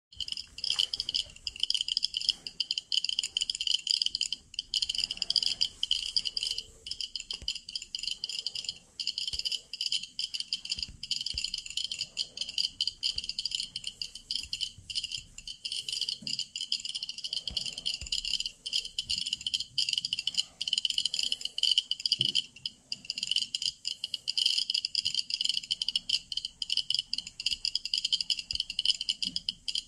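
Many Atom-scan Geiger-counter dosimeters clicking at once. Their beepers overlap into a dense, irregular, high-pitched crackle of ticks, each click marking a detected radiation count.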